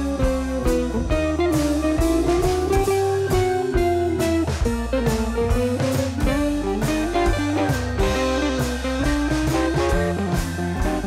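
Instrumental background music: a lead guitar melody with bent notes over bass and a drum beat, blues-rock in style.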